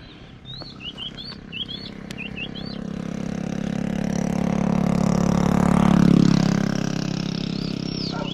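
An engine passing by, growing steadily louder to a peak about six seconds in and then fading, with small birds chirping over the first few seconds and a falling whistle near the end.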